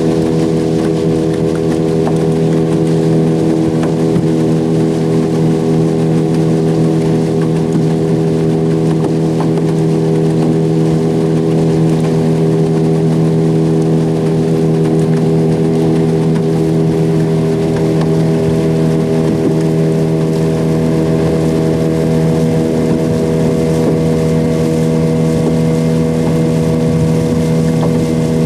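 Small outboard motor on an aluminium fishing boat running at a steady cruising speed, an even, unchanging engine drone heard from aboard the boat.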